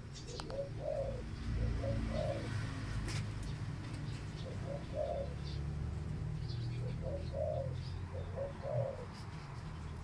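Dove cooing: short low coo phrases repeated several times, with pauses of a second or more between them.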